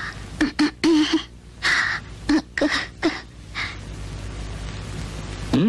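A person crying: short gasping, sobbing breaths and a few brief whimpering voice sounds through the first three and a half seconds, then quieter.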